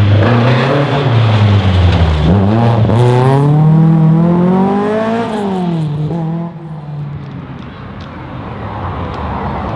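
Historic rally car's engine running hard as the car drives past on the stage. The engine note dips briefly about two seconds in, then climbs steeply, falls, and fades away about six and a half seconds in. Quieter engine and crowd noise is left after it.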